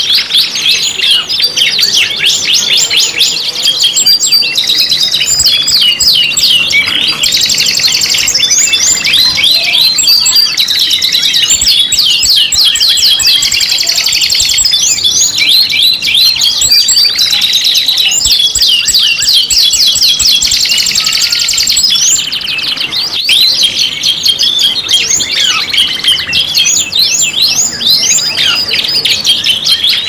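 Several domestic canaries singing at once: dense, continuous rolling trills and rapid chirps layered over one another.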